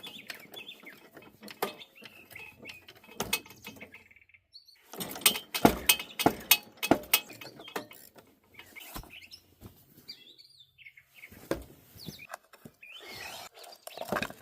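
A run of sharp clicks and knocks about five to seven and a half seconds in, with a few more single knocks later, as metal parts are handled. Birds chirp faintly throughout.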